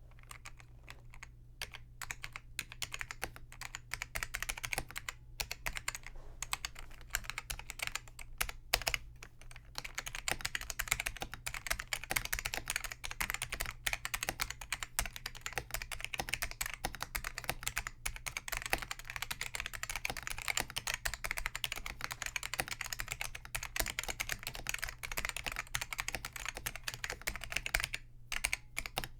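Continuous typing on a Focus FK-2001 keyboard with Hua-Jie T1 Alps clone switches that have had their click leaves removed, so each keystroke gives a short, non-clicky clack with a strong tactile bump. The keystrokes come in a fast, steady run, with a few brief pauses.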